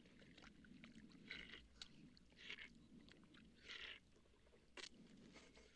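Faint sips and slurps of water with small scraping and rustling handling sounds, in short separate bursts, as men drink at a desert well.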